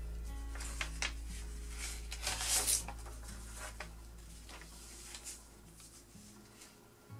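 A creased A4 sheet of paper rustling and sliding on a table as it is turned and smoothed flat by hand, loudest about two and a half seconds in. Soft background music with low held notes runs beneath and fades out near the end.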